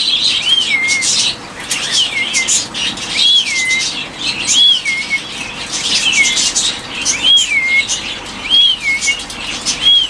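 Caged parrots calling. A whistled call rises and then drops, repeated about eight times at roughly one every second and a half, over dense, continuous chirping from many birds.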